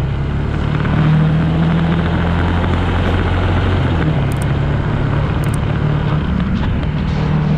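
Suzuki GSX250 motorcycle engine under way as the bike rides along, its low drone stepping up in pitch about a second in and dropping about four seconds in with throttle and gear changes, over a steady rush of wind and road noise.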